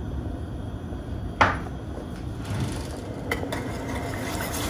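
A single sharp clink against a stainless steel pan about a second and a half in, then a wire whisk stirring cocoa powder into milk in the pan, with a few light metallic ticks of the whisk on the pan.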